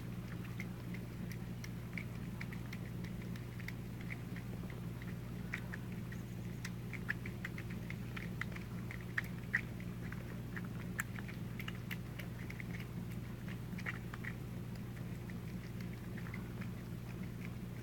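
Two cats eating wet fish food from bowls: a continuous run of small, irregular, wet chewing and lapping clicks, with a few sharper ticks. A steady low hum sits underneath.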